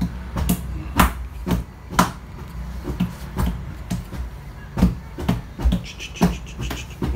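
Handling noise from a cloth rubbing a baby monkey's face and body in a dry wipe-down: a run of short clicks and soft knocks, irregular but about two a second.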